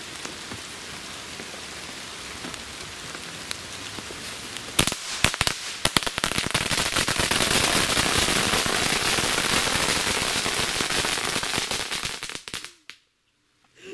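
2,000-shot firecracker mat going off. A steady fuse hiss comes first, then a few single bangs about five seconds in. These build into a dense, continuous rattle of rapid bangs that stops suddenly near the end.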